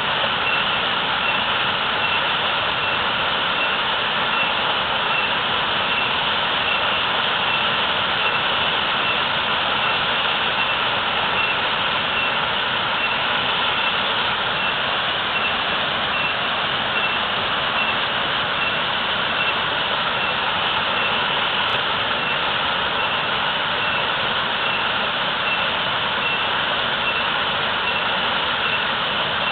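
Waterfall pouring heavily: a steady, even rush of falling water.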